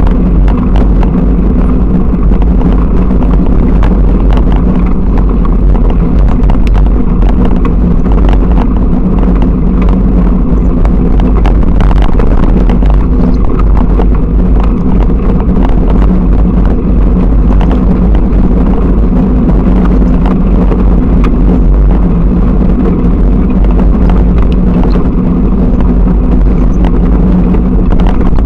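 Bicycle rolling over a bumpy dirt track, picked up by an action camera mounted beside the front wheel: a loud, steady rumble of tyre and mount vibration with many small knocks from bumps.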